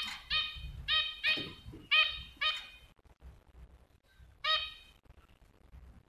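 White zebra finch calling: about six short, evenly pitched calls in quick succession, roughly two a second, then a pause and one more call.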